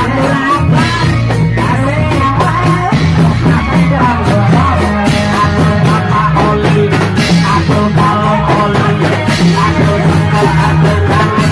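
Loud live music from a reog troupe's band: drums beating a fast, steady rhythm under a low bass line, with a wavering melody line over it.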